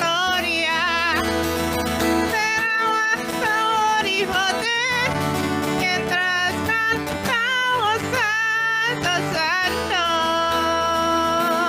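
Worship song: voices singing a slow, wavering melody over acoustic guitar.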